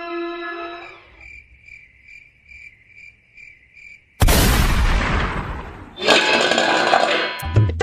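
A cricket-chirping sound effect pulses about three times a second after a held tone dies away. About four seconds in a sudden loud crash comes, and about six seconds in a steel plate clatters down with a metallic ringing. Tabla music starts near the end.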